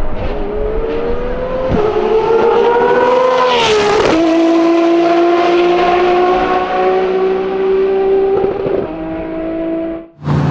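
Race car engine accelerating hard through the gears, with quick upshifts about 2 and 4 seconds in and a long, slowly rising pull afterwards, then lifting off near the end.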